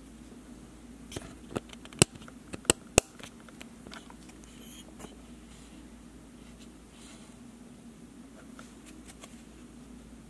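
Trading cards handled in the hands: a handful of sharp clicks and snaps of card stock over the first three seconds, then only a faint steady hum.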